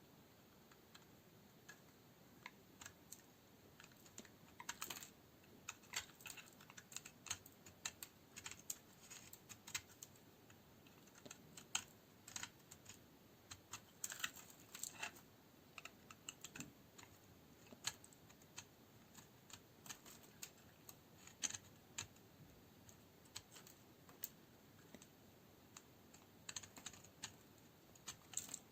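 A blade cutting through dry, hard bar soap, making many small, crisp, irregular clicks and crunches as it bites in and pieces snap off.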